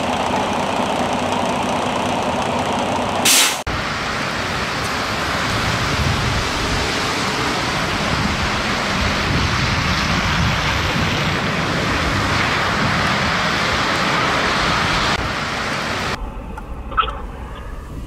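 Steady rushing noise of highway traffic and wind in a snowstorm, with a brief loud blast about three seconds in. Near the end it drops to a quieter, muffled sound.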